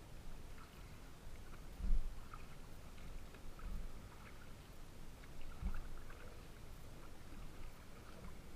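Small waves lapping and slapping against the hull of a Pungo 140 kayak on choppy water, with light splashes and a few dull thumps about two seconds apart.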